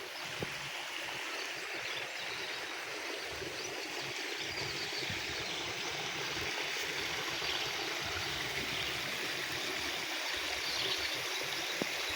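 Water running steadily in a stream-like trickle, with a faint tap about half a second in and another near the end.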